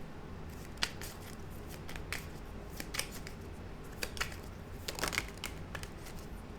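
Tarot cards being handled on a table, a scattered series of light, sharp clicks and snaps.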